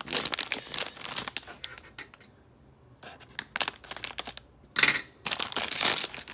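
Metallic foil blind-box bag crinkling and crackling as it is handled and cut open with scissors. There is a quiet pause of about a second starting about two seconds in, then scattered clicks and a loud burst of crinkling just before five seconds.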